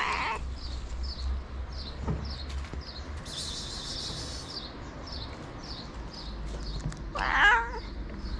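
White street cat meowing: a brief meow right at the start, then a longer, louder meow about seven seconds in. A steady run of short high chirps, two or three a second, goes on behind.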